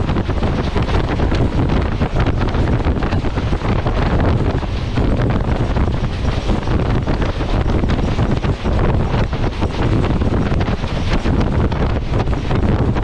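Strong wind buffeting the microphone over the steady low rumble of a moving passenger train.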